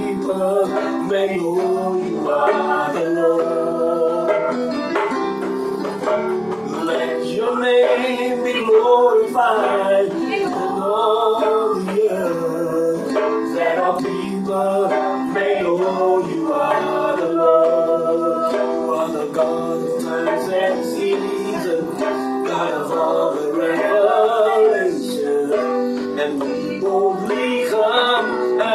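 A man singing over his own electronic keyboard playing sustained chords and a melody, a continuous stretch of slow worship music.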